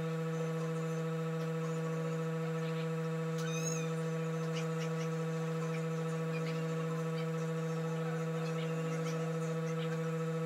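A steady electrical hum, with faint scattered crackles from a pan cooking on a gas burner. A brief wavering chirp sounds about three and a half seconds in.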